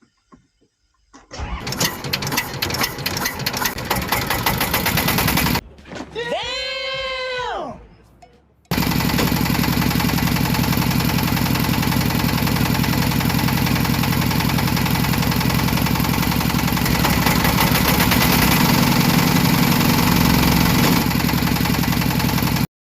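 Dubbed-in sound of a small single-cylinder 'dompeng' diesel engine. It starts with a rapid putting, gives way for a few seconds to a pitched tone that rises and then falls, and then runs steadily until it cuts off suddenly near the end.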